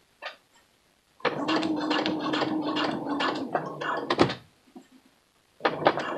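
Sewing machine stitching for about two seconds, a steady motor hum under rapid needle strokes, then stopping. A sharp click follows, and a few lighter clicks come near the end.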